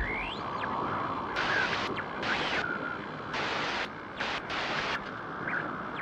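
Static-like hiss, with louder bursts of high hiss cutting in and out sharply several times and a few short chirping glides: an electronic intro sound effect.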